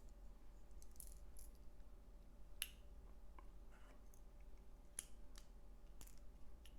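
LEGO plastic pieces being handled and pressed together: a few scattered sharp clicks, the clearest about two and a half and five seconds in, over a faint steady hum.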